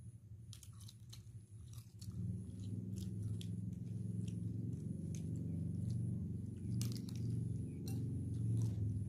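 Chewing and biting, with sharp clicks of grilled prawn shells being cracked and peeled by hand. About two seconds in, a louder low rumble comes in and keeps going.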